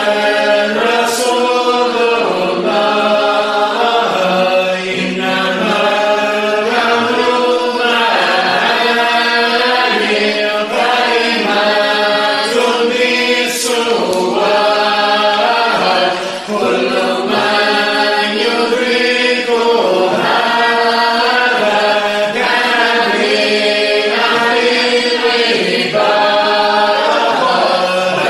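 Voices of a Sufi dhikr gathering chanting a qasida together: a continuous sung melody in long held notes, phrase following phrase without a break.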